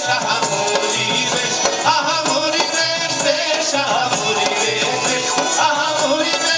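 Live stage music: a melody over a steady percussion beat.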